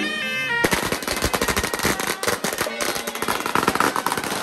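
A string of firecrackers going off in a fast, dense crackle for about four seconds. It starts about half a second in and stops just before the end, cutting across shrill wind-instrument music.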